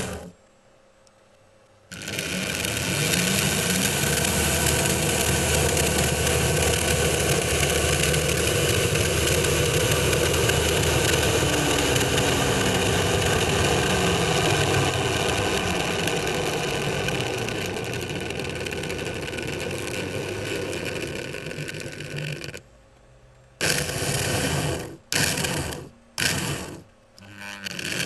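Märklin H0 model electric locomotive's motor and gears running steadily, starting about two seconds in. The pitch slides up and down as the speed changes. Near the end it runs in several short bursts, starting and stopping.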